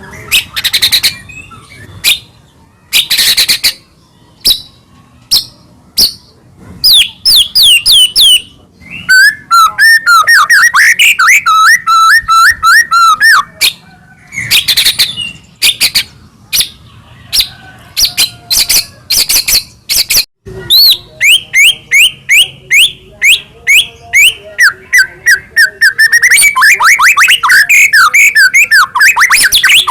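White-rumped shama (murai batu) singing loudly: sharp separate notes and whistles, broken by two long runs of fast repeated sweeping notes, the first about nine seconds in and the second from about twenty-one seconds to near the end.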